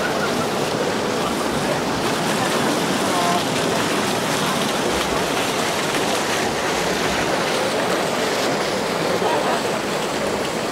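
Dense crowd chatter: many people talking at once, an even wash of indistinct voices.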